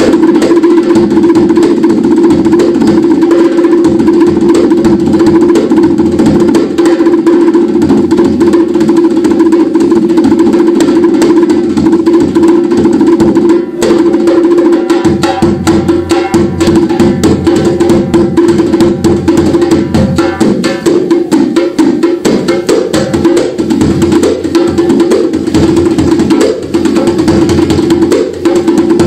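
Live instrumental music from a drum kit and a cello: rapid, dense drumming over a steady held note, with the low drumming growing heavier about halfway through.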